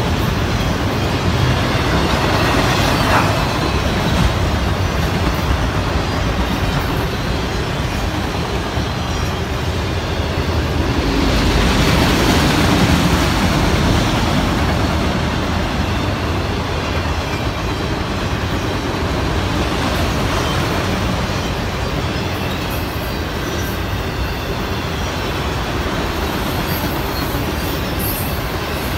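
Freight train of autorack cars rolling past: a steady rumble and rattle of steel wheels on rail, growing louder for a moment twice, about 3 and 12 seconds in.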